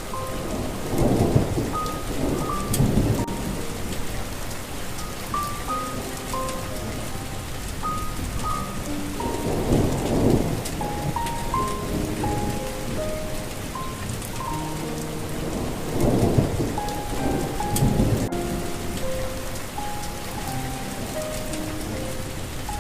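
Steady rain falling, with rolls of thunder swelling up about a second in, near the middle and again later on. A soft melody of short single notes plays over the rain.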